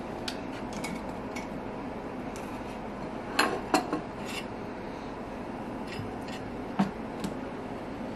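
Small decor items being picked up and set down on a shelf: light clicks and clinks, with two sharp clinks about three and a half seconds in and a single knock about seven seconds in.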